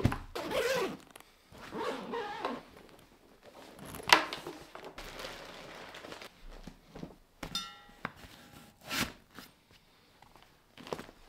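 A black fabric backpack being handled and packed: rustling of the bag's fabric and straps, with soft thuds and a few sharp knocks as it is shifted and set down. The sharpest knock comes about four seconds in, another about nine seconds in, and a short rapid rasp a little past halfway.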